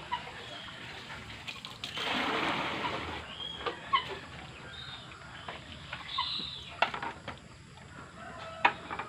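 Chickens clucking and calling, with a burst of water splashing about two seconds in as hands scoop azolla out of a water tank. A few sharp knocks come near the end.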